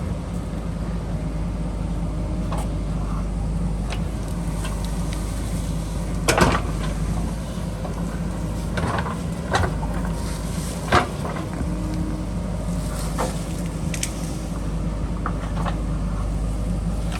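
JCB backhoe loader's diesel engine running steadily, with sharp clanks and knocks every second or few, the loudest about six seconds in.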